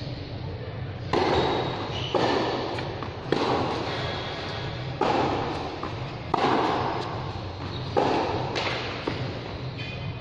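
Tennis ball impacts: six sharp pops about a second and a half apart, each echoing in a large covered court hall.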